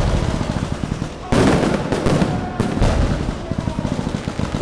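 Fireworks going off in rapid succession: a dense crackle of small bangs, with a few louder bursts, the biggest about a second in.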